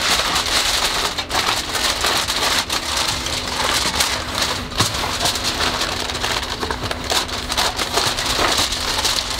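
Aluminum foil crinkling and crackling as it is pressed down and crimped around the rim of a disposable aluminum pan, a continuous dense crinkle made of many small crackles.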